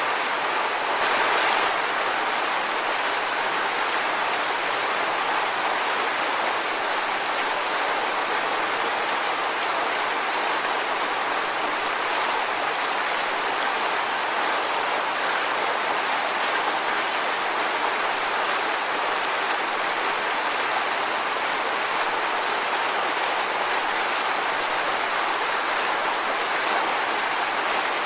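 Waterfall rushing, a steady, even wash of falling water, with a brief slight swell about a second in.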